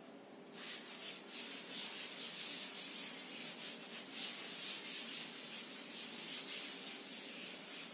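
Chalk being erased from a blackboard with a duster: repeated rubbing, scraping wipe strokes, starting about half a second in.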